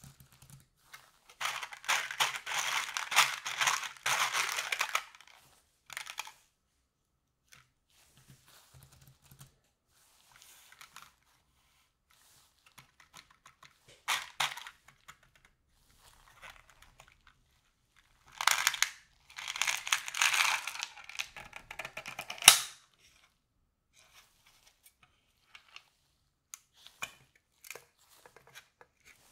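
Thin plastic yogurt pot being flexed and handled while the hard chocolate-coated balls in its corner compartment rattle and click against the plastic as they are tipped out onto the yogurt. There are two long stretches of crackling and rattling with a brief one between them, and the second ends in one sharp click.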